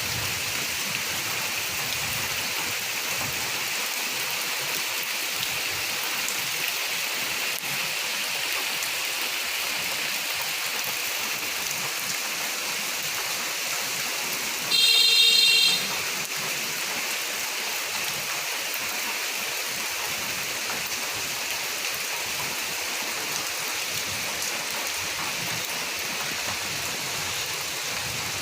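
Steady rain falling, an even hiss. About halfway through, a single loud pitched blast lasts about a second.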